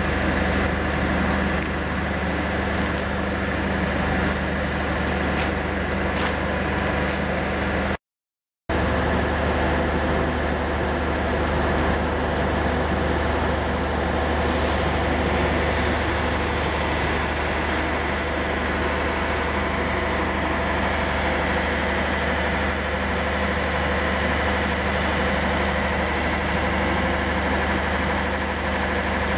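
Idling diesel railway engine: a steady low hum with a fixed higher whine above it. It cuts out for a moment about eight seconds in.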